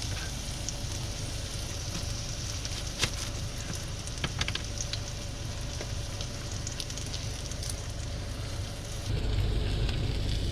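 Vegetarian burgers frying in a little garlic oil in a Ridge Monkey-style pan, a steady sizzle with scattered crackling pops, two sharper ones about three and four and a half seconds in.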